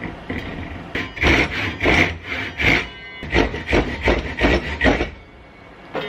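Hand saw cutting through wood in about ten quick back-and-forth strokes, roughly two a second, stopping about five seconds in.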